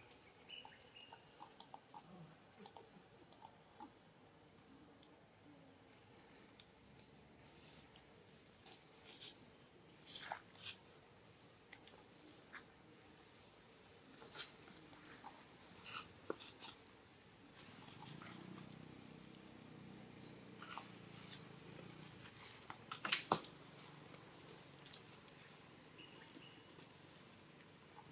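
Faint outdoor ambience of scattered rustling clicks, with short runs of high chirps. A low hum comes in for a few seconds past the middle, and a few sharper clicks near the end are the loudest sounds.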